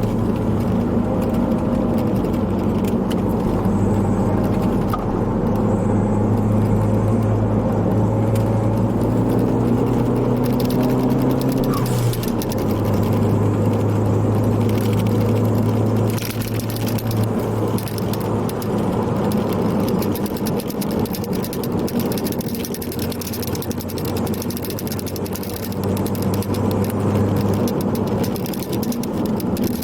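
Ford Focus ST's turbocharged four-cylinder engine and road noise heard from inside the cabin while driving, the engine note shifting about twelve and seventeen seconds in. Loose camera-strap clips rattle and clank against the mount throughout.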